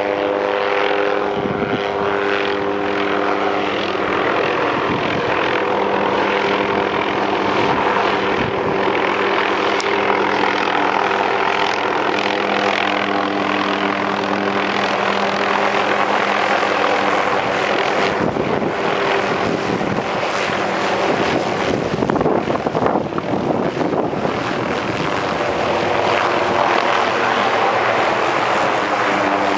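A helicopter flying low overhead, its rotor and engine running steadily. Over the noise sits a hum of several steady tones, which fade in the middle and come back near the end.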